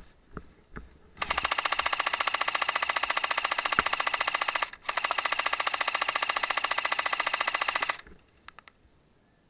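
Airsoft rifle firing on full auto close by: two long, rapid bursts of about three seconds each, with a short break between them.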